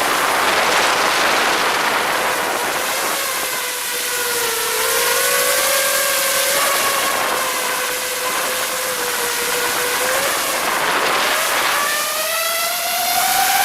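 FPV drone's motors and propellers whining in flight, with a rushing hiss of air. The pitch wanders up and down with the throttle and climbs steadily near the end.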